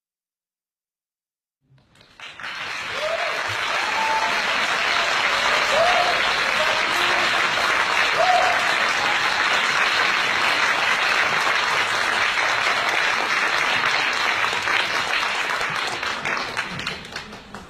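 Audience applauding, starting suddenly about two seconds in and dying away near the end, with a few short shouts from the crowd in the first seconds of the clapping.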